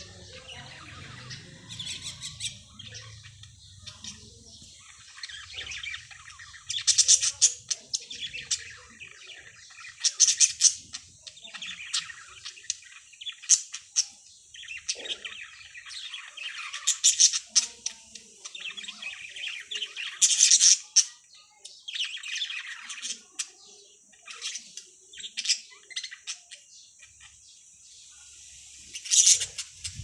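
A flock of budgerigars chirping and chattering, with louder squawky bursts every few seconds.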